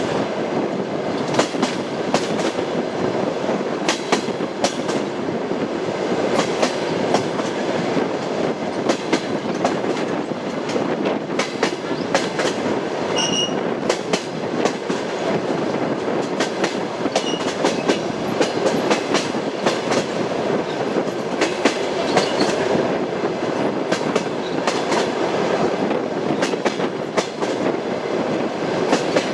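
Train wheels clattering over the rail joints, with a steady rumble of the moving railway carriages under an irregular run of clicks. A brief high wheel squeal comes about halfway through.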